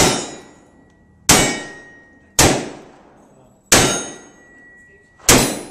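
Five revolver shots from a single-action revolver, fired one at a time about a second or so apart, each a sharp crack with a decaying echo. Several shots are followed by the ringing clang of a steel target being hit.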